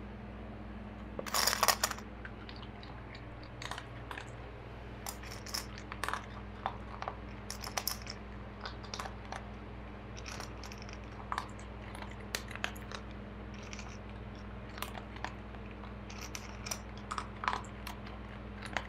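Long-haired dachshund eating from a stainless-steel dog bowl: irregular crunching chews and small clicks against the metal, with a louder burst about a second and a half in.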